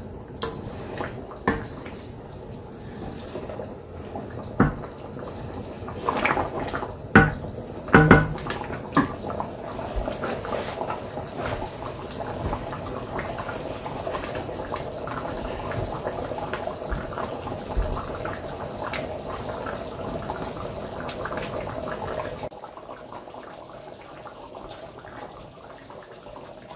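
Thick coconut-milk sauce with pork bubbling steadily in a stainless steel skillet, reducing over raised heat. A wooden spoon knocks against the pan several times in the first nine seconds. The bubbling drops quieter about 22 seconds in.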